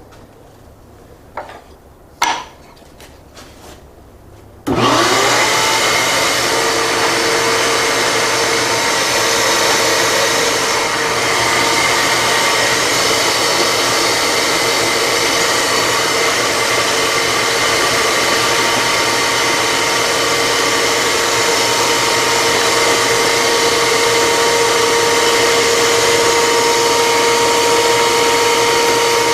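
A few light clicks, then about five seconds in a shop vacuum is switched on. Its motor whines up to a steady pitch and keeps running.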